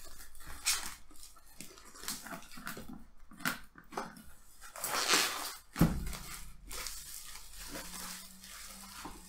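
Plastic shrink-wrap being ripped and crinkled off a cardboard box, irregular crackling and rustling with a louder crinkly stretch about five seconds in. A dull thump of the box being handled follows just after.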